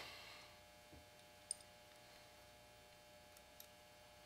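Near silence with a few faint light clicks, the sharpest about a second and a half in: the bolt, rod and coil spring of a Winchester Model 1903 .22 rifle being handled.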